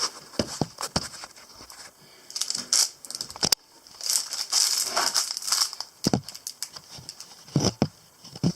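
Rummaging and handling small plastic parts: scattered clicks and light knocks, with bursts of crinkling.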